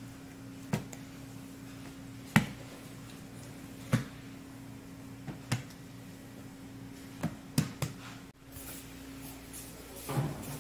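Soft knocks and pats as large balls of bread dough are set down and patted on a work counter, one every second or two, over a steady low hum.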